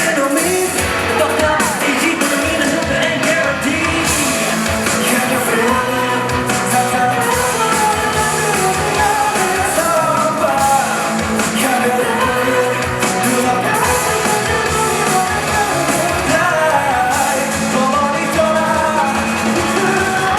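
A live rock band performing, with a voice singing over the band.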